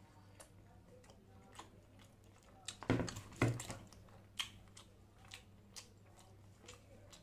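A person chewing a mouthful of chicken frankie roll: soft, quiet mouth clicks and smacks, with two louder clicks about three seconds in.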